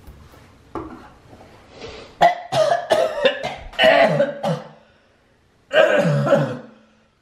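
A man coughing and gagging over a kitchen sink in three bouts, the longest in the middle, after a mouthful of a drink mixed from sriracha, beer, shampoo, dish soap and Coke.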